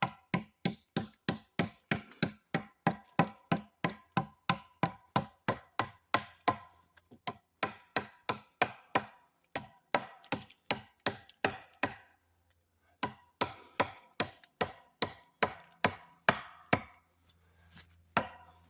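Baker "Roughie" chopping knife hacking into wood in quick repeated strikes, about three a second, each with a short metallic ring from the blade. The chopping stops briefly about twelve seconds in, then resumes.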